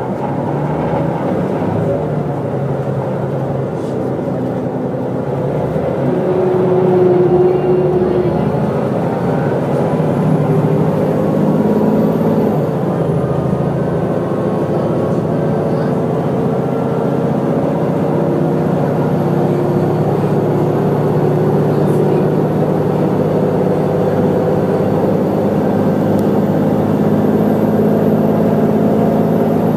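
Mercedes-Benz O405GN2 articulated bus heard from on board while driving: the engine note climbs steadily over the first several seconds as the bus picks up speed, then runs on at a steady cruise.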